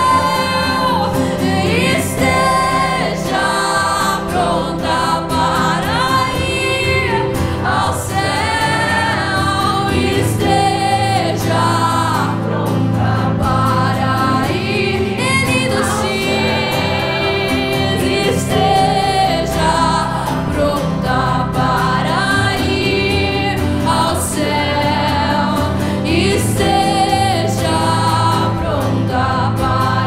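Live Christian worship song: a woman singing lead with acoustic guitar and keyboard, and other voices singing along with her.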